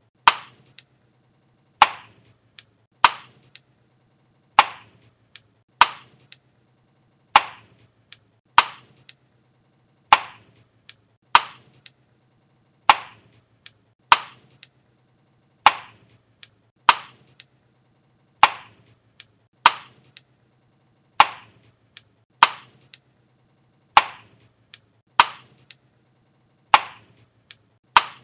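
Chewing gum snapping close to the microphone: a sharp wet click about every second and a half, with fainter clicks in between.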